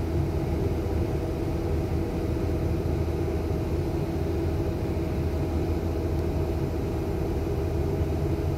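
Steady low rumble with a constant engine hum, from an idling bus mixed with a freight train rolling past a railroad crossing.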